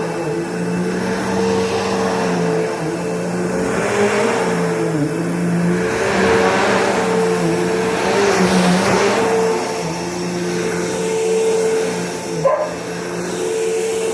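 Upright vacuum cleaner running, its motor holding a steady hum with a higher whine over it, while a rushing air noise swells and fades through the middle. A single sharp click near the end.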